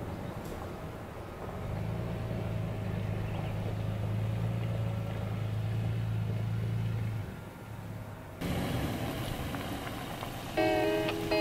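Toyota FJ Cruiser's 4.0-litre V6 running at low speed as the SUV pulls away slowly up a dirt track: a steady low engine hum for about five seconds that then fades away. Near the end, plucked acoustic guitar music starts.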